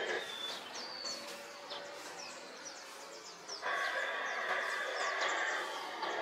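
Birds chirping, many short quick calls, over steady background noise that swells louder about three and a half seconds in.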